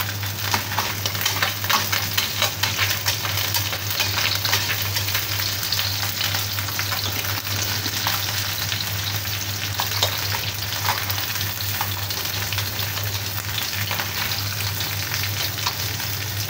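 A whole fish shallow-frying in hot oil in a wok, sizzling steadily with dense small pops and crackles. A metal spatula moves in the pan now and then.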